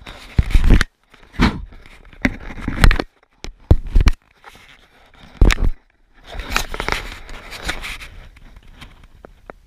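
Fingers handling a GoPro camera right at its microphone, bumping and rubbing against it: a string of irregular knocks and scrapes, then a longer stretch of rustling about six seconds in.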